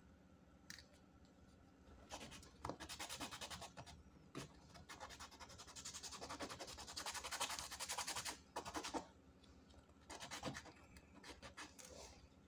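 Small PVC part being sanded by hand, rubbed quickly back and forth on a sheet of sandpaper. The scratchy strokes start about two seconds in, stop briefly near the end, and start again for a short spell.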